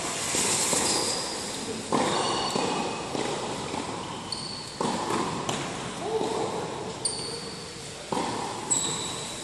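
Tennis rally on an indoor hard court: sharp racket strikes and ball bounces a second or two apart, echoing in a large hall, with short high squeaks of tennis shoes on the court surface.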